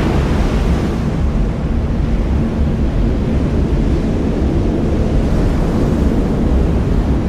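Storm waves and wind, a steady deep rumbling noise with no distinct tones.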